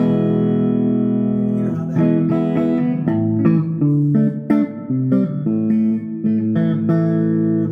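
Electric guitar, a Stratocaster with its bridge and neck single-coil pickups wired in series, being played: a chord rings for about two seconds, then a run of picked notes and chords.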